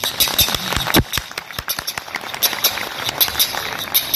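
Reso-reso, a ridged scraper, being scraped with a stick in quick rhythmic strokes, giving a rapid run of sharp clicks.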